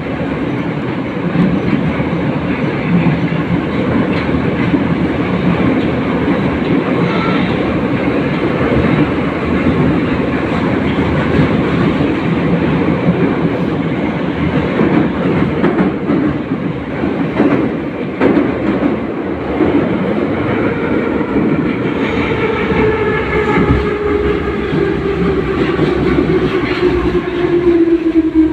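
Warsaw-built numbered-type metro train running between stations, heard from inside the car: a steady loud rumble with wheel clatter. From about three-quarters of the way through, the motors' whine falls steadily in pitch as the train slows.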